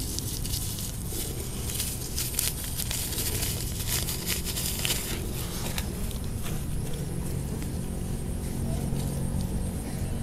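Steady low outdoor rumble with scattered light crackles during the first half.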